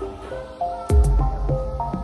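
Background music: a stepping synth melody over a deep bass drum hit about a second in.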